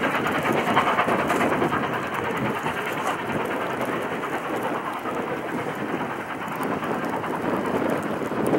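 Steady rushing roar of blizzard wind blowing across the microphone, with a passenger train's rumble fading as it rolls away into the snow.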